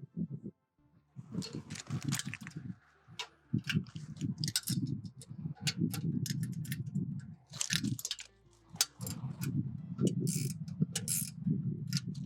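Hand work on small metal fasteners and mounting hardware: irregular metallic clicks and rattles over the rustle and knock of handling, with a short pause about a second in.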